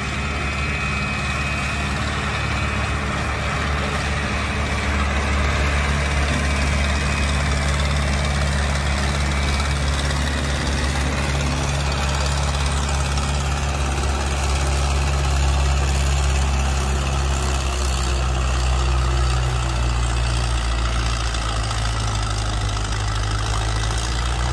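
1955 Minneapolis Moline GB tractor's propane-fuelled engine running steadily under heavy load through a pull, with a low drone.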